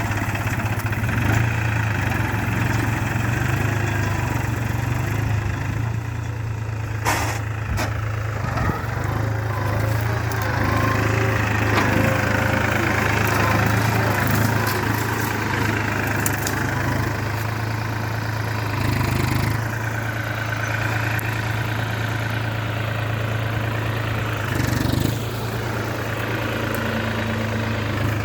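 New Holland 4710 tractor's three-cylinder diesel engine running steadily at a hand-set throttle while pulling a plough in four-wheel drive, first gear high range. There is one sharp click about seven seconds in.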